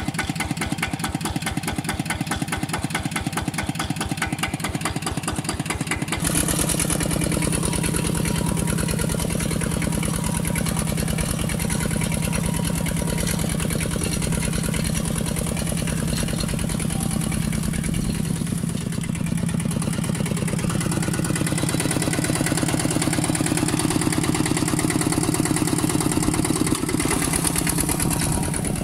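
A two-wheel walking tractor's single-cylinder diesel engine running steadily. For the first six seconds its firing pulses come through sharp and rapid. Then the sound changes abruptly to a fuller, steady run as it pulls a disc plough through dry soil.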